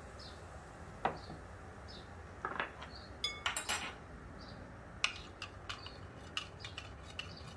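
Kitchen utensils and dishes clinking and knocking against a cooking pot: scattered short taps, a few with a brief ring, while the sauce is prepared.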